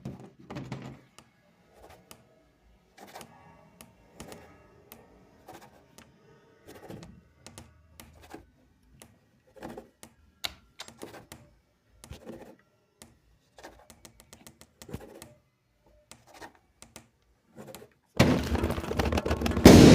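Homemade sound effects of a cheap, faulty projector: irregular mechanical clicks and thunks, then about two seconds from the end an abrupt, much louder dense clattering noise.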